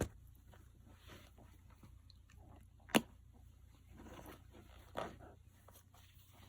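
Asahi Pentax film camera being handled during film loading: a sharp mechanical click about three seconds in, with softer clicks at the start and about five seconds in and light handling noise between.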